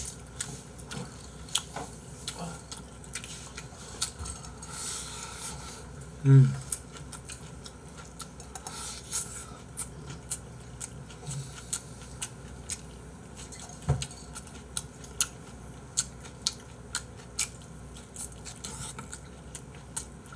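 A person eating pizza close to the microphone: wet chewing and lip-smacking clicks, with light clatter of a plate being handled. About six seconds in there is a short, loud vocal grunt that falls in pitch.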